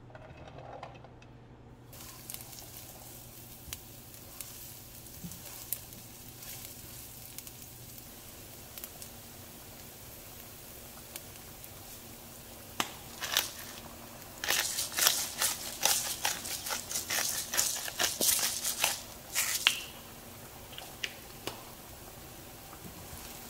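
Diced tempeh and garlic frying in avocado oil in a nonstick pan, starting to sizzle about two seconds in as they hit the oil, with scattered crackles. Past the middle comes a run of louder, rapid clicks and scrapes.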